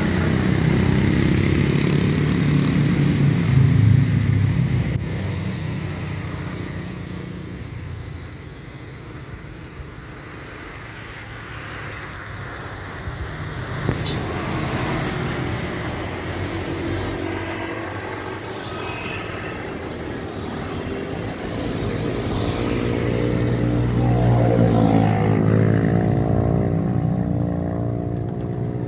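Airbus A320-214 jet airliner with CFM56 engines at take-off thrust on its take-off roll and lift-off: a steady jet rumble that eases off partway through and swells again as the aircraft rotates and climbs, with a sweeping, wavering tone near the end.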